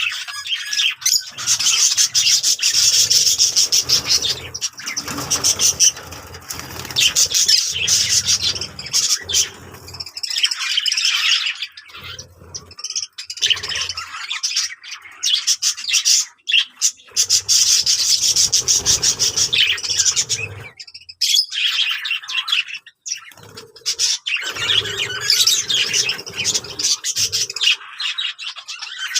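Budgerigars chattering and warbling, a dense, continuous twittering with a few short breaks, and stretches of low rustling underneath.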